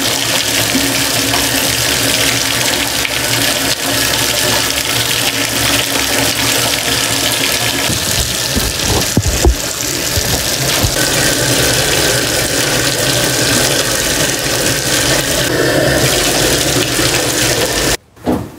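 Bathtub tap running steadily into the tub while a French bulldog is washed, with a brief loud thump about halfway through. The running water cuts off suddenly near the end.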